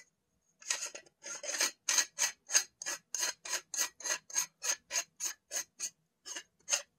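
Metal screw threads scraping as the front metal jacket is turned by hand into the scope clamp's inner threads: a quick, even series of short rasping strokes, about three a second, stopping shortly before the end.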